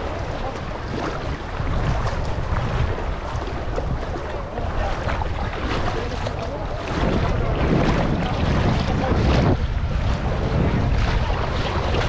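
Shallow sea water lapping and sloshing right at the camera, with wind buffeting the microphone. It grows louder about seven seconds in.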